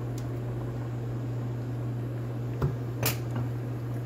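Pasta water at a rolling boil in a stainless steel pot, bubbling over a steady low hum, with two short knocks near the end, less than half a second apart.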